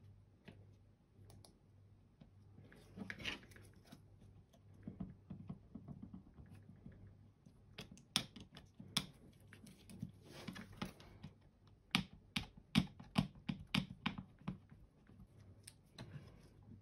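Small plastic clicks, taps and brief rustles from handling a computer mouse while its skates are pressed back onto the underside, with a quick run of sharper clicks about twelve seconds in, over a faint low hum.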